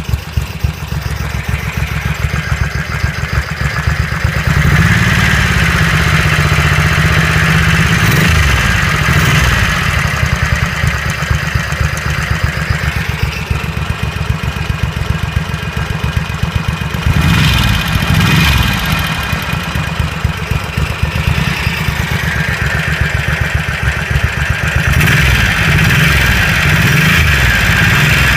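Engine idling with a steady low firing note, blipped up and back down a few times.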